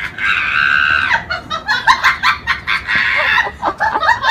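A person shrieking with high-pitched laughter: two long held squeals broken up by rapid short gasping bursts.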